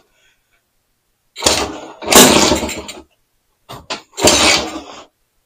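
Freshly rebuilt BSA Bantam B175 two-stroke single being turned over in two loud start attempts, each lasting about a second, with a short knock between them; it does not catch and run.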